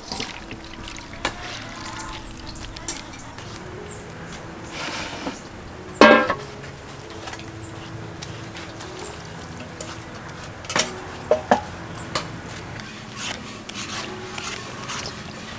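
Metal bowls and utensils clinking and knocking during food preparation, the loudest a single ringing clank about six seconds in and a quick run of clicks around eleven seconds. Soft background music with held notes plays underneath.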